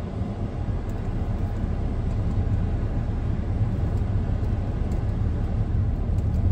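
Car cabin noise while driving slowly: a steady low rumble of engine and tyres on the road, heard from inside the car.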